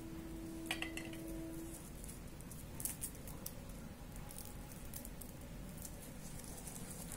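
Garlic cloves peeled by hand: faint, irregular crackle and rustle of dry papery skins picked and pulled off with the fingernails. A faint steady tone sounds for about the first two seconds.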